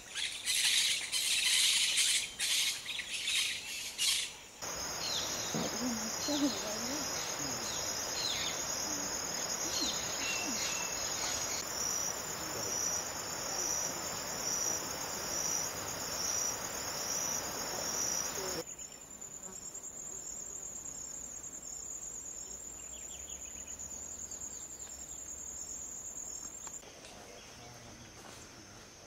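Harsh bird calls for the first four seconds, then a steady, high-pitched insect chorus with an even pulse. The insect chorus shifts to a slightly higher, single buzzing tone about two-thirds of the way through and turns quieter near the end.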